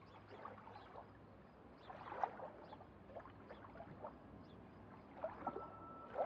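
Faint bubbling and gurgling water with scattered small crackles, as heard through an underwater camera.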